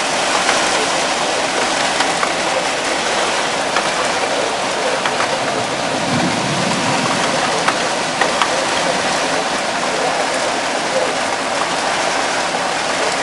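Heavy rain falling steadily, a dense, even hiss with scattered sharp drip clicks.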